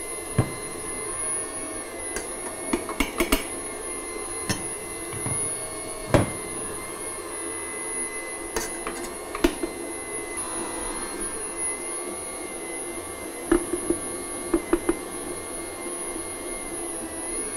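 Hobart stand mixer motor running steadily on speed 1, its dough hook turning through flour and water at the start of mixing bread dough. Scattered sharp clinks of a metal scoop against the bowls as flour is added, several in quick succession near the end.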